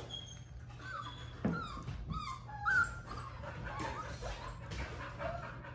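Goldendoodle puppies whining in short high calls several times, the loudest a little under three seconds in.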